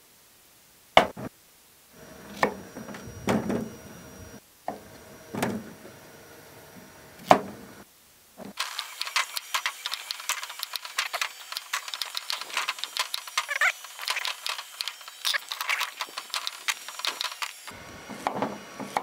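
Chef's knife cutting carrots and beetroot on a wooden cutting board. In the first half there are separate knocks of the blade on the board; from about halfway to near the end there is a dense run of quick, crisp ticks.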